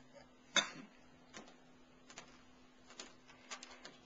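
Microphone and cable handling noise during a sound check: scattered clicks and knocks, the sharpest about half a second in, over a faint steady electrical hum on the line.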